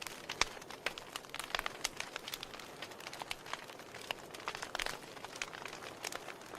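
Burning logs crackling in a fireplace: irregular sharp pops and snaps over a soft, steady hiss.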